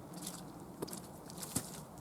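Footsteps crunching on a dry forest path at an easy walking pace, about one crunchy step every half second or so.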